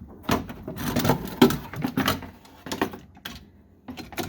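Old car window regulator being worked out of the door shell: irregular clunks, knocks and scrapes of its rails and cables against the inside of the door.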